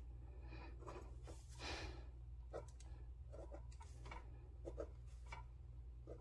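Gel pen scratching on lined notebook paper as numbers are written by hand, in short irregular strokes, over a steady low hum.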